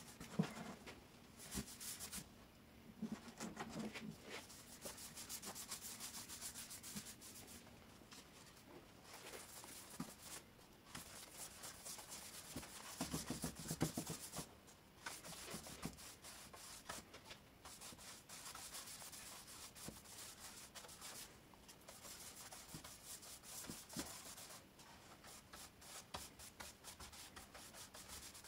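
A bristle brush stroking liquid finish over the wood of a large turned bowl: faint scratchy brushing strokes that come and go. About halfway through there is a louder knock and scrape as the bowl is handled on the bench.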